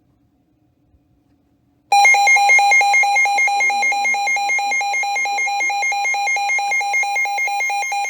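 Emergency Alert System two-tone attention signal (853 and 960 Hz sounded together), starting abruptly about two seconds in and holding at a steady loud level. It announces an incoming emergency alert, here a severe thunderstorm warning.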